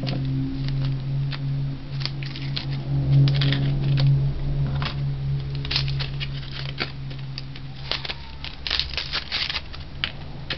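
Kitchen knife clicking and scraping on a plastic cutting board as onions are peeled and trimmed, with crackly tearing of the dry onion skin. A steady low hum runs underneath.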